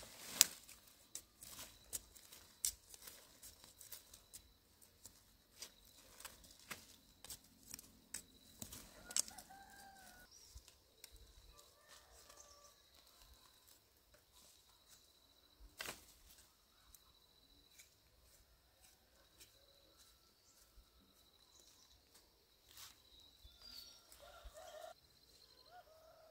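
Scattered faint clicks and rustles, the loudest near the start and one about two-thirds of the way in, with a few short bird calls and a thin steady high whine underneath.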